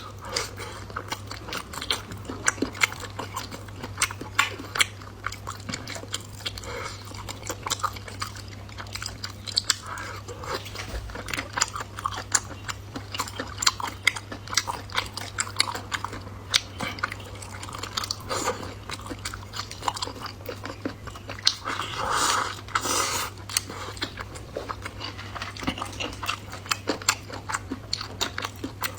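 A person chewing and biting food close to the microphone, with a dense run of quick wet mouth clicks and a louder stretch a little over two thirds of the way in, over a steady low hum.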